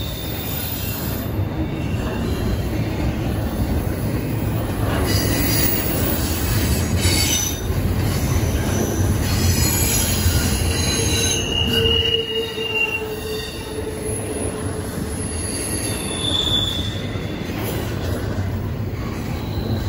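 Double-stack intermodal freight train's container well cars rolling past, a steady rumble of steel wheels on rail. Short high-pitched wheel squeals come and go at several pitches.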